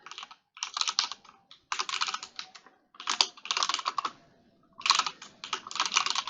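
Typing on a computer keyboard: quick runs of key clicks in bursts of about half a second to a second, with short pauses between them.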